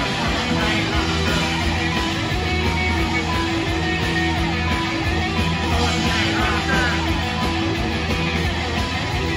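Post-punk band playing live: electric guitars over bass and drums in a steady, loud, unbroken stretch of the song, heard from within the audience.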